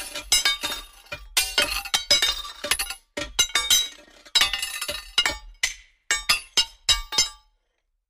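Metal banging against rocks: rapid, irregular clanks, each with a short ringing tone, coming in a few clusters and stopping about seven and a half seconds in.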